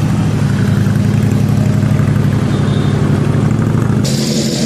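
Custom bagger motorcycle's engine running steadily at low speed as the bike rolls and turns. Near the end the sound cuts abruptly to a different engine with a steady hiss over it.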